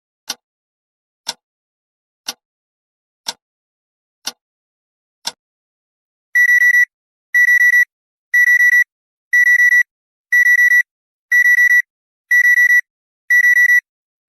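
A clock ticks once a second; about six seconds in, the countdown timer's alarm takes over, a high electronic beep in quick groups of four that repeat every second, signalling that the countdown has finished.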